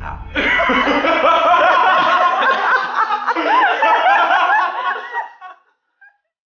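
A man's loud, maniacal laughter, cackling on without a break and then fading out about five and a half seconds in.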